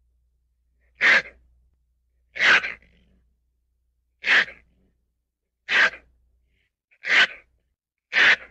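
A ferret sneezing six times in a row, short sharp sneezes about every one and a half seconds.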